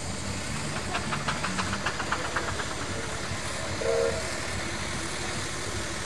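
Steam traction engine running with a steady low rumble, with a quick run of clicks for about a second and a half and a short low-pitched tone a little later.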